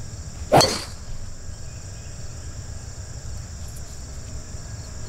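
Golf driver striking a ball off the tee: one sharp crack about half a second in, with a brief ring after it.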